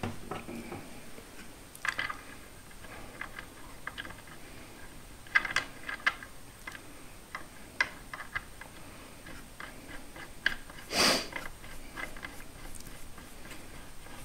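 Scattered light metallic clicks and taps as a blade and its arbor bolt are fitted back onto a Milwaukee circular saw by hand, with one louder short clatter about eleven seconds in.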